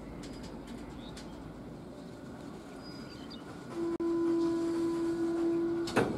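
WAP-4 electric locomotive horn sounding one steady blast of about two seconds, starting a little past halfway, over the low rumble of the approaching train. A few faint bird chirps in the first half, and a sharp click as the horn stops.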